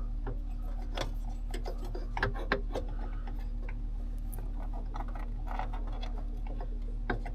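Scattered light clicks and taps of small parts being handled while a switch panel and its wiring are fitted, over a steady low hum.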